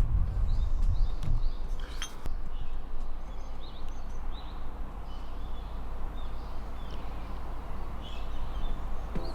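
Small birds chirping repeatedly over a steady low rumble, with one sharp click about two seconds in.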